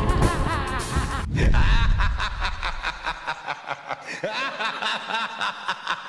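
Background music cuts off about a second in, followed by a person laughing in a run of short, evenly spaced chuckles, about three a second.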